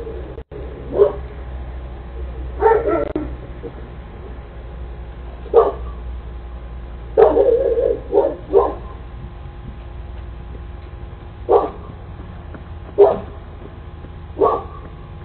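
A Cane Corso barking in deep single barks and short clusters of barks, a second or several apart, heard through a Ring doorbell camera's microphone.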